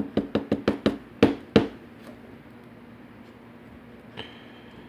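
Parts of a disassembled pin-tumbler lock being handled while the pins come out of the plug: a quick run of about eight light clicks and taps in the first second and a half, the last two the loudest.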